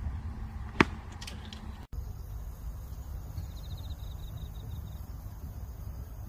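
A golf club strikes the ball with one sharp crack about a second in. After a cut, a low steady rumble continues while an insect trills in rapid short pulses from about three seconds in.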